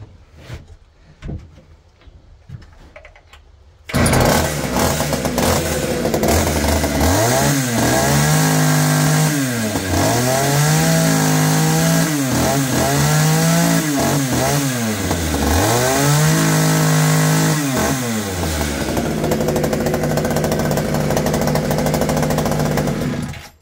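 Small two-stroke Frontier chainsaw catching about four seconds in, then revved up and held about four times, each time rising and falling in pitch, before settling back to idle and cutting off near the end. It is run up to see whether the oiler throws bar oil off the chain.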